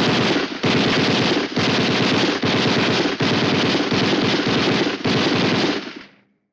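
Vintage film-and-cartoon library machine gun sound effect: a long stream of rapid automatic fire broken by short gaps into about seven bursts, fading out near the end.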